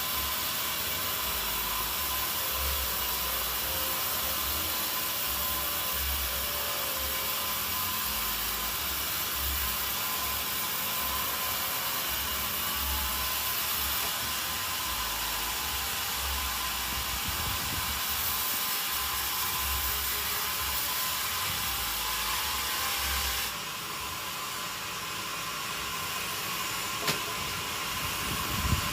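Sawmill machinery running steadily with a loud hiss and a low uneven rumble. The sound drops and changes about three-quarters of the way through, with a few sharp knocks near the end.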